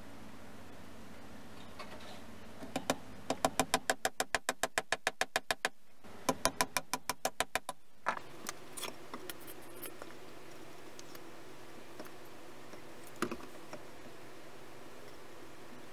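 Rapid, even tapping from a hand tool on wood, about six strikes a second, in two runs of a few seconds each with a short break between, followed by a few scattered knocks.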